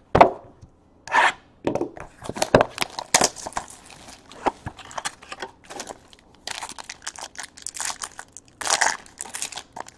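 Clear plastic wrapping being torn open and crumpled by hand, a run of short crackly crinkles and rustles, with a sharp knock at the very start.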